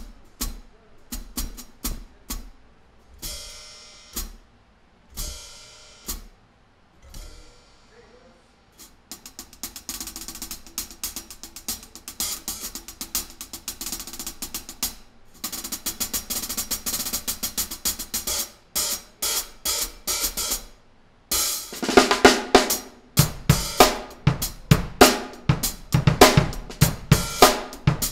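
Meinl Pure Alloy 14-inch B12 bronze hi-hats played with drumsticks: first single strokes, some left open to ring on, then fast, steady stick patterns. In the last third the playing gets louder, a groove on the hi-hats with snare and bass drum.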